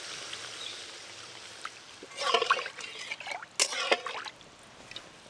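Water pouring from a bowl into an aluminium kadai of fried spice paste, trickling in with a steady hiss. About two seconds in, a metal ladle stirs and scrapes the pan in a few loud strokes.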